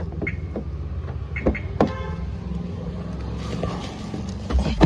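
Car door being opened and closed: a few sharp clicks from the handle and latch in the first two seconds, then the door shutting with a heavy thump near the end, the loudest sound, over a steady low rumble.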